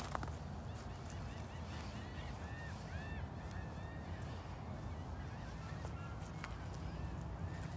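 Birds calling: a run of short chirps that rise and fall, thickest in the first half, then a few scattered calls, over a steady low rumble.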